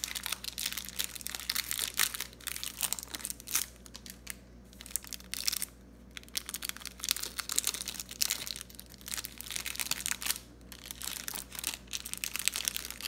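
Clear plastic wrapper of a trading card pack crinkling and tearing as it is pulled open by hand, in irregular bursts with short pauses.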